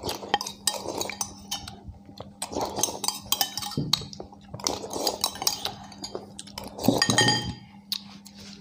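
Metal spoons clinking and scraping against ceramic bowls in quick, irregular strokes as two people eat fast, scraping up a thick stew. The clinks are densest and loudest about seven seconds in.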